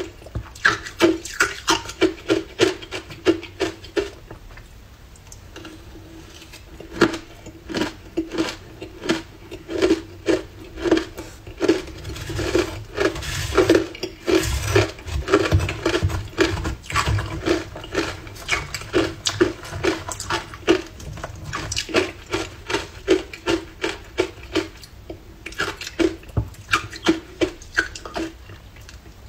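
Hard ice being crunched between the teeth, in sharp regular crunches about two to three a second, with a softer lull a few seconds in. About halfway through, a metal spoon scrapes and digs through crushed ice in a plastic bowl.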